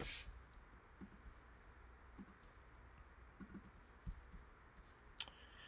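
Near silence: room tone with a few faint clicks, a sharper one at the start and another near the end.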